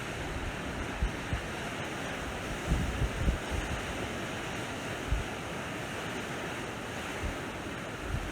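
Sea waves washing on a shore as a steady hiss, with wind buffeting the microphone in brief low rumbles a few times, the strongest about three seconds in.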